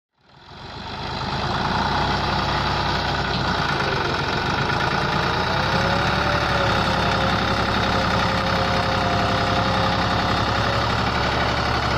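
Massey Ferguson 260 tractor's diesel engine running steadily under heavy load, pulling a fully laden trolley hard enough to lift its front wheels. The sound fades in over the first second or two, and a faint whine shifts slightly in pitch about halfway.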